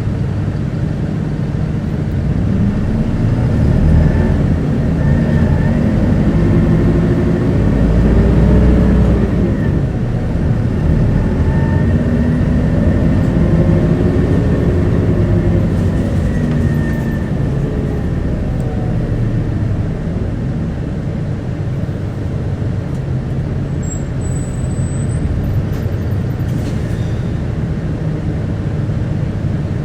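Isuzu Erga city bus heard from on board while driving. The engine's pitch rises and falls twice as the bus accelerates through the gears in the first two-thirds, then it runs more steadily and a little quieter.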